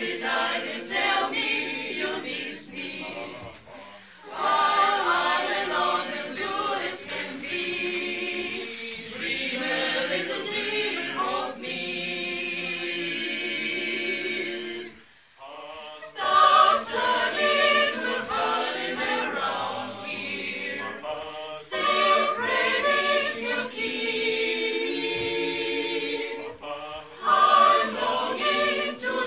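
Small mixed choir of women's and men's voices singing a cappella from sheet music. The singing breaks off briefly twice, about four seconds in and about halfway through.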